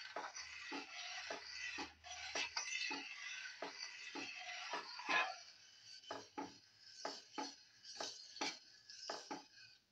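A metal spoon stirring a thick milk mixture in a metal pan, scraping around the pan for the first few seconds, then a series of sharp clinks against the pan, roughly in pairs, over the last few seconds.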